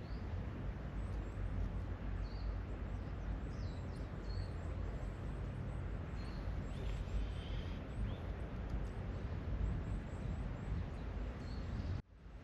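Strong wind buffeting the microphone in a steady low rumble, with scattered bird chirps faintly above it. The sound cuts out briefly near the end.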